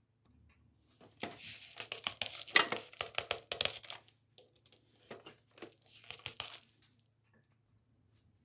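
Crinkling and tearing noises in two bursts: the first about three seconds long, the second about two.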